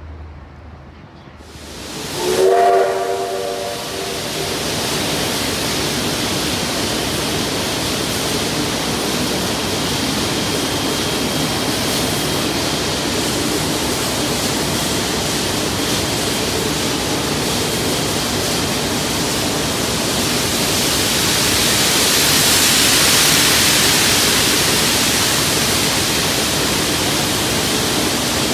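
Steam locomotive blowing off steam: a loud, steady hiss that swells for a few seconds near the end. A brief whistle note sounds about two seconds in.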